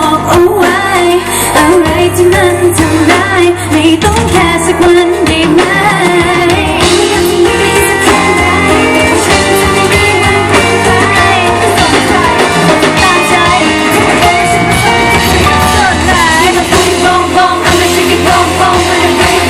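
Loud live pop music through a PA system: a female vocal group singing over a backing track with a steady bass beat.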